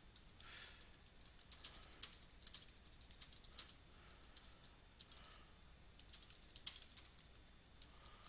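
Computer keyboard typing: a faint run of quick, irregular keystrokes with short pauses between bursts.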